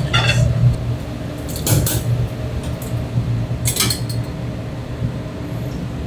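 Kitchen work sounds over a steady low hum: a few short clinks and clatters of utensils or dishes, just after the start, about two seconds in and again near four seconds.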